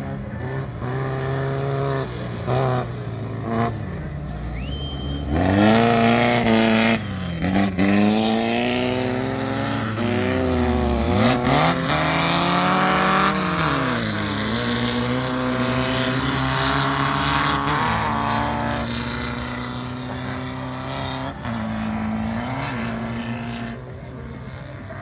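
Engines of air-cooled Volkswagen Beetle-based dirt-track race cars revving hard, their pitch climbing through each gear and dropping at the shifts. One car goes by close about ten seconds in, its note swooping down as it passes, then the engines settle to a steadier drone that fades near the end.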